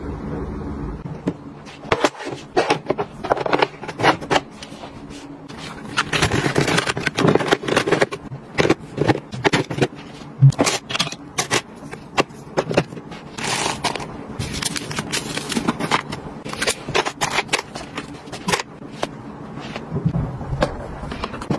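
Small cosmetics, tubes and jars being set into clear plastic drawer organizer trays: a busy run of irregular plastic clicks, taps and knocks.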